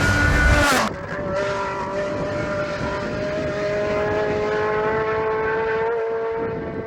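Rally car engine at high revs. A loud pass with a dropping note comes in the first second, then a steady high engine note creeps slowly up in pitch and fades near the end.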